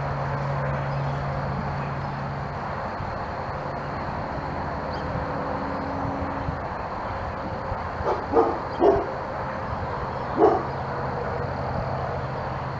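A dog gives short barks or yips, three in quick succession about eight seconds in and one more two seconds later, over a steady low background hum.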